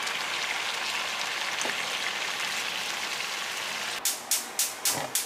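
Saucepan of water at a rolling boil, a steady bubbling hiss. About four seconds in, a gas stove burner's igniter starts clicking rapidly, about four clicks a second.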